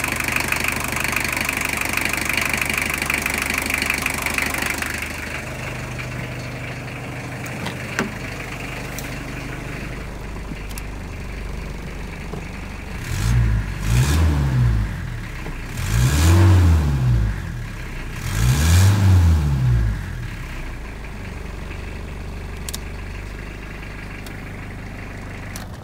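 Toyota diesel engine in a 1988 Toyota pickup idling steadily. It is heard up close for the first few seconds, then more quietly from inside the cab. About halfway through it is revved three times in quick succession, each rev rising and falling in pitch, before settling back to idle.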